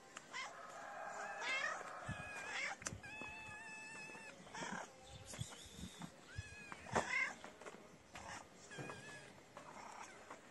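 A kitten meowing repeatedly, high-pitched cries for food, some calls gliding up and down in pitch and others held steady, with a few soft low thumps between them.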